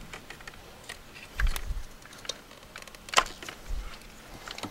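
Irregular light clicks and knocks of hands working on the ignition coil of cylinder 5 on a BMW N54 engine, the coil pack behind a misfire code, with a dull knock about a second and a half in and a sharp click about three seconds in.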